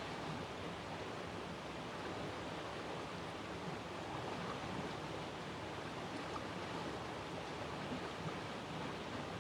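Steady, even outdoor background noise with no siren tone: the siren is silent.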